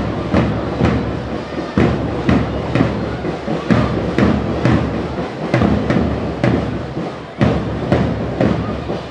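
School marching band playing a march, its drums beating a steady rhythm of about two beats a second.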